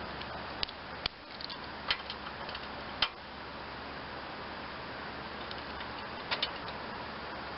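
A few separate sharp metal clicks and clinks from hand tools and engine parts being handled while the Onan engine's side covers are unbolted, over a steady background hiss. The clicks come about four times in the first three seconds, then as a quick pair about six seconds in.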